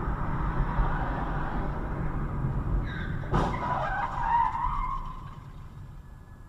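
Road and engine rumble heard from inside a car, then tyres skidding with a squeal from about three seconds in, fading out about two seconds later. A sharp bang sounds about half a second into the squeal.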